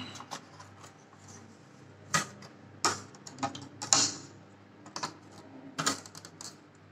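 Light plastic clicks and taps, a handful at irregular intervals, as a soap dispenser's plastic mounting plate is handled and knocked against a ceramic-tiled wall.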